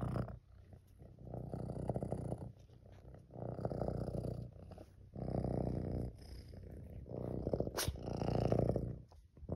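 Tabby kitten purring close up, the purr swelling and fading in a steady rhythm about every second and a half as it breathes in and out. A single sharp click is heard near the end.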